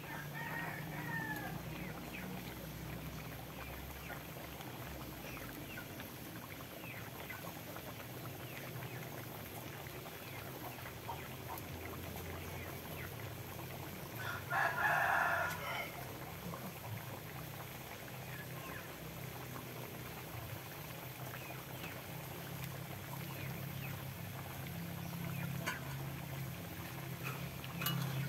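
Domestic chickens calling nearby: a short falling call near the start and one louder call, typical of a rooster's crow, about halfway through, over a steady low hum.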